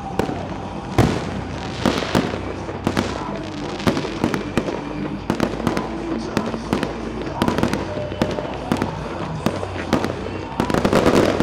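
Fireworks display: aerial shells bursting in a string of sharp bangs at irregular intervals, building to a dense, louder volley near the end.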